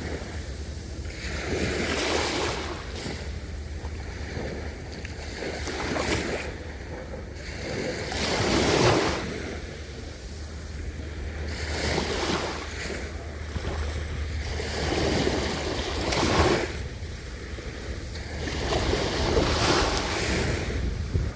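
Ocean waves breaking and washing onto a beach, surging in repeated swells every few seconds, with a steady low rumble of wind on the microphone.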